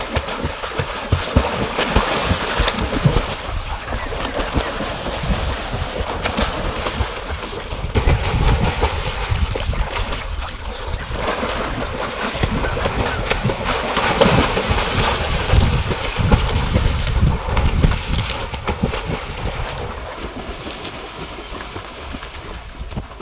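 Pool water splashing and churning as swimmers kick and thrash, with surges of heavier splashing and low gusts of wind buffeting the microphone.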